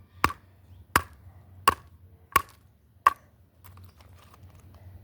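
Five sharp clicks or knocks, evenly spaced about two thirds of a second apart, followed by a few faint ticks.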